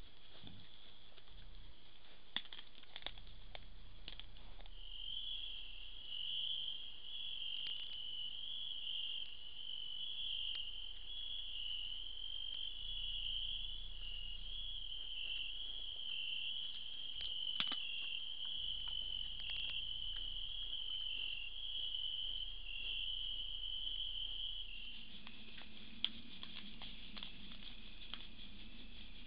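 Crickets chirping steadily in a high, pulsing chorus, with scattered faint clicks and rustles. Near the end a low hum joins in.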